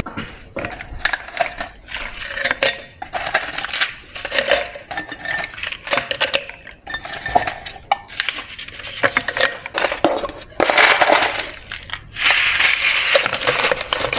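Dishes and cutlery clinking and clattering in irregular knocks while breakfast is set out, with a couple of longer, noisier stretches in the last few seconds.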